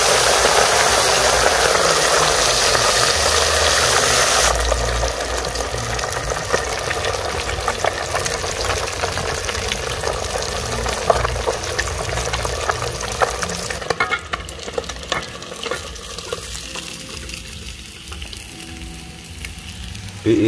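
Whole hottentot seabream deep-frying in very hot oil: a loud, dense sizzle that drops after about four and a half seconds to a softer sizzle full of crackling pops, dying down over the last few seconds. The fierce sizzle shows the oil is properly hot.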